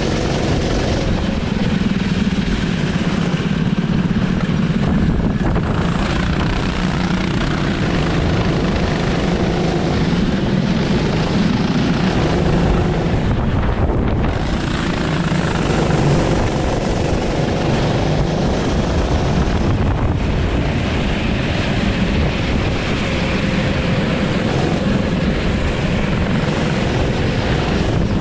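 Go-kart engine running at speed, heard close up from the kart itself, with a steady loud buzzing note that shifts a little as the kart goes through the corners.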